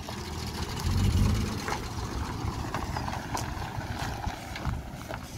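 Holden VL Commodore engine running with a low rumble that swells about a second in, carrying a bit of a noise and sounding like it is missing a little: a slight misfire, as the occupants hear it.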